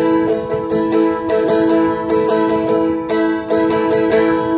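Seagull Merlin M4 four-string dulcimer strummed in a steady rhythm on an A chord, its strings ringing on between strokes.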